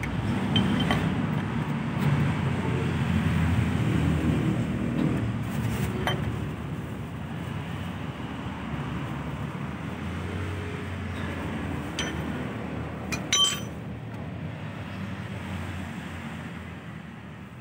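Metal tools clinking against a car's clutch pressure plate as it is being fitted: a few sharp clinks, the loudest a ringing double clink about thirteen seconds in. Under them runs a steady low rumble of road traffic.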